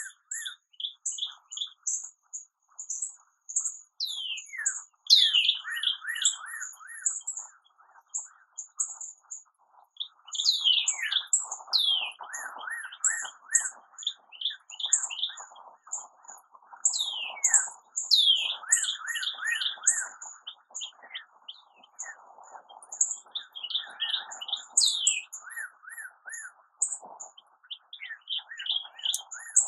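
Several birds calling at once from a holly tree: a steady stream of short, very high chirps, repeated whistles that sweep downward, and a busy lower chatter underneath, with no pause.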